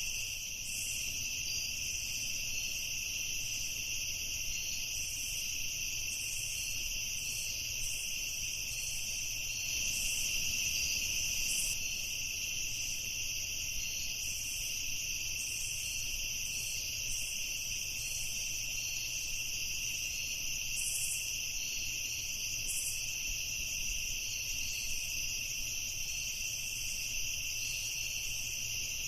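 Night insect chorus: a dense, steady trilling of crickets at two pitches.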